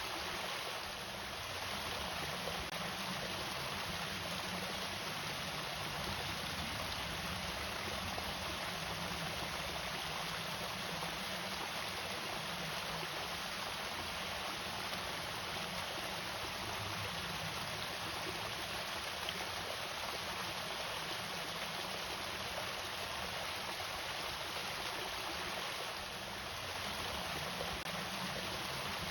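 Water running steadily over a small irrigation waterfall, a constant even rush of falling and flowing water.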